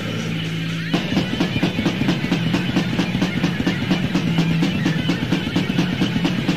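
Raw death/black metal demo recording: a held chord rings for about a second, then the drums come in with fast, even strokes under the band.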